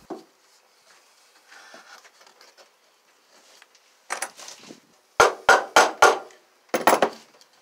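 Claw hammer striking a pine 2x4 held against the hanger bolts in the van wall, pressing the bolt tips into the wood to mark where the bolt holes will be drilled. A knock about four seconds in, then four blows about a third of a second apart and a quick run of blows near the end.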